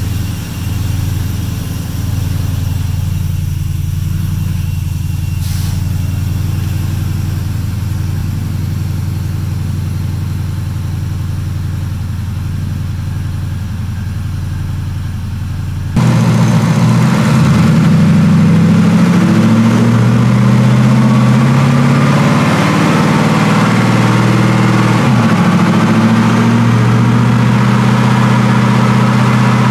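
Warmed-up twin-turbo 6.2-litre V8 of a Ford F-150 Harley-Davidson idling steadily, heard inside the cab. About halfway through the sound jumps suddenly louder and fuller, the engine now heard from outside the truck, still running at a fairly steady speed.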